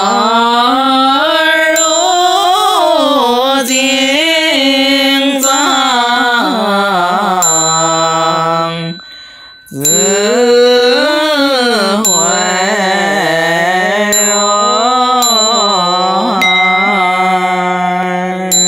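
Chinese Buddhist liturgical chant (fanbei) sung in long, drawn-out melodic notes, in two phrases with a brief pause about halfway. A small ritual hand bell rings about every two seconds.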